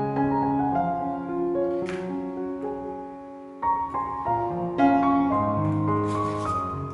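Background music: gentle solo piano playing held notes, with a short lull a little past halfway before the next phrase begins.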